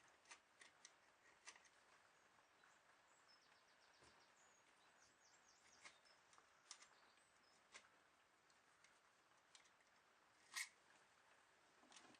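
Near silence: faint background hiss with scattered faint clicks and a few faint, short, high chirps.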